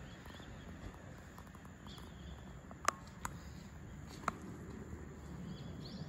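Quiet outdoor background noise, a low steady hiss and rumble, broken by three short sharp clicks around the middle.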